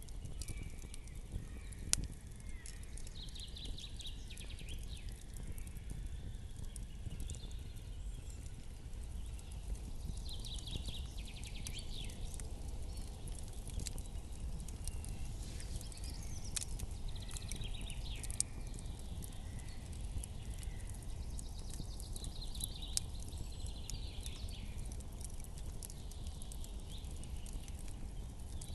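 Campfire crackling, with sharp pops scattered through, over a low steady rumble. Short high trilling calls come and go every few seconds.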